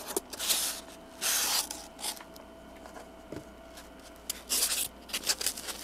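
Paper packaging rustling and tearing in several short bursts as a box is unwrapped by hand.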